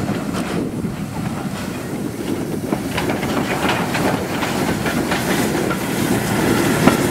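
Ol49 steam locomotive and its train of two-axle vintage passenger coaches passing close by, the wheels knocking over the rail joints. The sound grows gradually louder as the coaches roll past.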